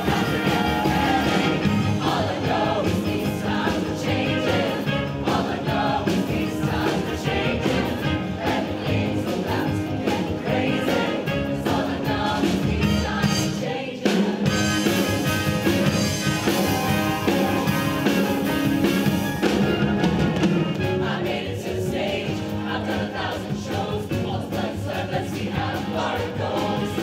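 Large mixed show choir singing with instrumental accompaniment. The music drops back briefly about halfway through, then comes back in on a sudden hit.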